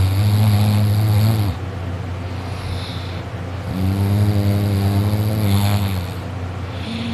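A sleeping boy snoring really loud: two long, low-pitched snores of about two seconds each, with a quieter breath between them, and the next snore starting near the end.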